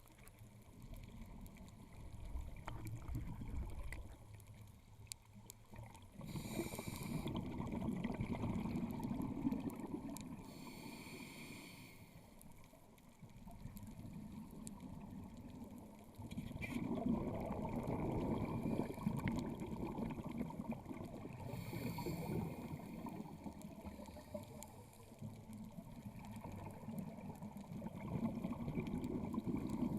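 Scuba diver breathing through a regulator underwater: short hissing inhalations alternating with longer, louder bubbling exhalations, about three breath cycles.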